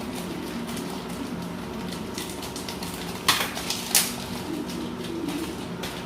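Kitchenware clinking twice, two sharp knocks a little over a second apart, about three seconds in, over a low steady background hum.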